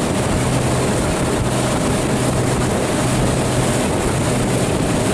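A motorboat's engine runs at a steady pitch with a low hum, under a constant rush of water and wind as the boat moves.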